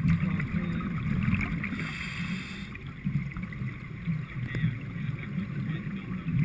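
Muffled, uneven underwater rumble and water noise picked up by a GoPro in its waterproof housing on a diver's hand, easing off in the middle and swelling again near the end.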